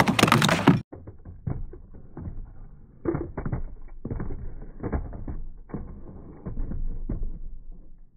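Plastic rubbing and knocking against a green plastic tube slide as a toy slides down it: loud and clear for the first second, then dull and muffled, with irregular knocks and scrapes.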